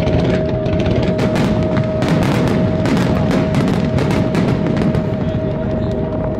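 Fireworks display in a rapid barrage, many shells bursting one after another so the bangs overlap into a continuous rumble with sharp cracks on top. A steady high tone runs underneath.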